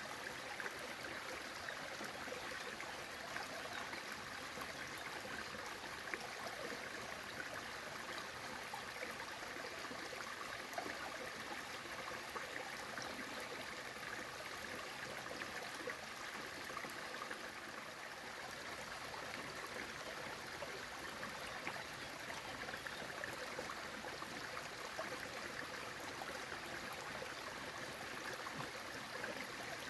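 Waterfall and the stream below it, water rushing steadily with fine splashing throughout.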